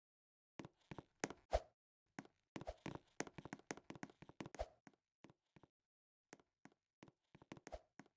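Irregular light taps and knocks, starting about half a second in. They come in quick clusters through the first half, the loudest knock about one and a half seconds in, then thin out to scattered single clicks.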